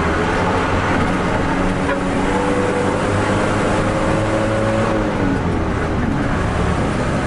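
Mitsubishi diesel engine of a medium bus running under way, heard inside the cabin over steady road and tyre noise. The engine tone climbs slightly from about two seconds in, then drops away a little after halfway.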